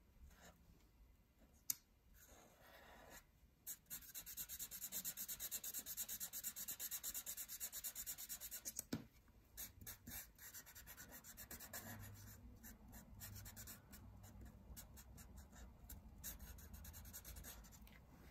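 Felt-tip Sharpie marker scribbling on paper to colour in a small circle, in quick back-and-forth strokes. The strokes are dense and fast for about five seconds, then lighter and sparser. A single sharp tick comes just under two seconds in.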